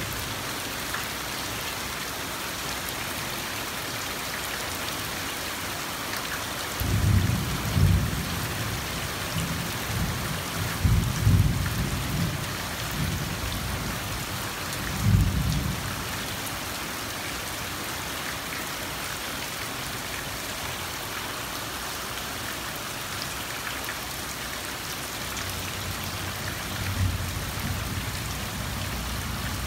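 Steady rain falling on garden plants and grass, an even hiss throughout. Several louder low rumbles come and go between about 7 and 16 seconds in and again near the end.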